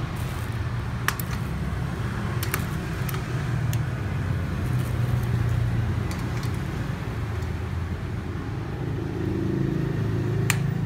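A few sharp metal clicks of an Allen key turning a bolt as a folding bed's handle bracket is tightened, over a steady low background rumble.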